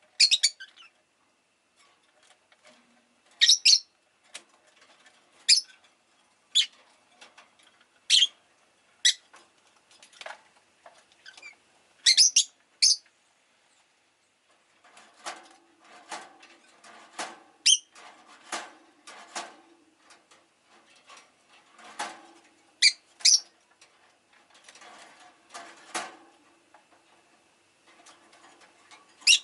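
Rosy-faced lovebird giving short, sharp, shrill chirps one at a time, every second or so. From about halfway through, a busier run of softer clicks and rustles runs between the calls.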